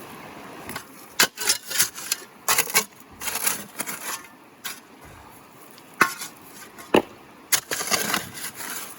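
Shovel digging into river gravel and cobbles: repeated scraping strokes with sharp clinks as the blade strikes stones, several times over.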